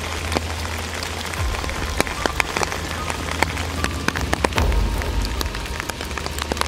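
Rain pattering on a small forest stream and the foliage around it: a steady hiss scattered with many separate drop taps.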